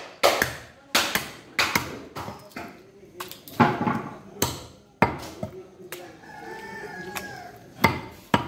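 Butcher's knife chopping beef on a wooden log block: a series of sharp, irregular chops. About six seconds in, a rooster crows for a second or two.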